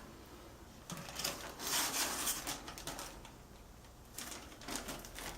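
Packaging being handled and unwrapped: crinkling and rustling with small clicks, in two spells, the first about one to three seconds in and a shorter one near the end.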